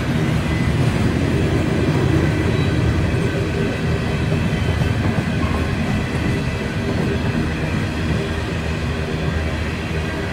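Covered hopper cars of a freight train rolling past: a steady, loud rolling noise of steel wheels and trucks on the rail, with a fast rattle running through it.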